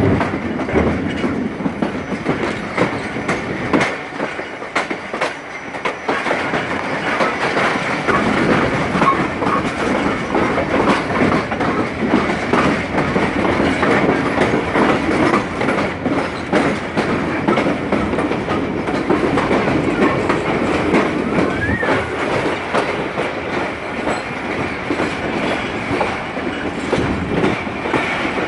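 A passenger coach running along the track, heard from its open doorway: a steady rumble of wheels on rail with an irregular clickety-clack as the wheels cross rail joints and points.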